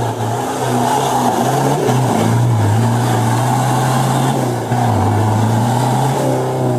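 Off-road 4x4's engine held at high revs, its pitch wavering as the throttle is worked, then the revs falling away near the end.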